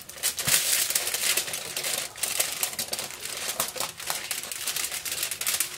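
Aluminium foil crinkling under hands handling a whole fish laid on it, in quick irregular crackles.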